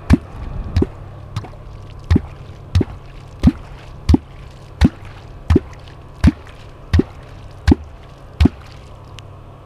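Catfish kvok (Perm kvok) being struck into the river surface over and over, about once every 0.7 seconds, each stroke a short deep watery plop with a sharp click on top. This is the call used to draw a wels catfish up from the bottom toward the bait.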